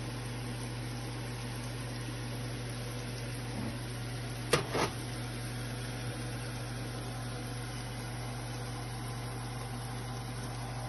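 Onion, tomato and scallion sautéing in oil in a frying pan: a steady sizzle over a low steady hum. Two sharp knocks come about a third of a second apart, about four and a half seconds in.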